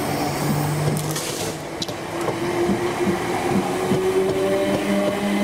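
A South Western Railway Class 456 and two Class 455 third-rail electric multiple units humming at low speed, with several steady motor tones. Near the end the tones start to climb slowly in pitch as the train gathers speed.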